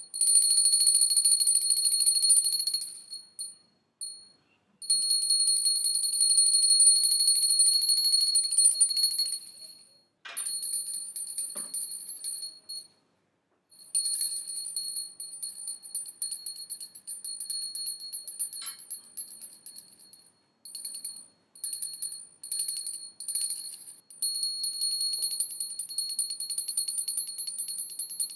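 Small harati (pooja) hand bell rung rapidly, its clapper striking many times a second for a high, bright ring. The ringing comes in bouts that stop and start again many times, louder in the first ten seconds.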